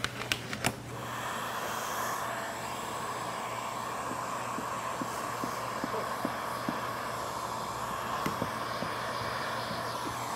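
Heat gun blowing steadily, switched on about a second in, while window tint film is heat-shrunk to a curved windshield.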